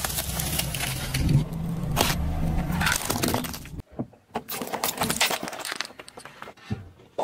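A car tyre rolling slowly over plastic drinking straws, crunching and cracking them over the low hum of the car's engine. Then a tyre crushes a row of small lidded plastic cups of jelly, a string of sharp plastic snaps and crackles.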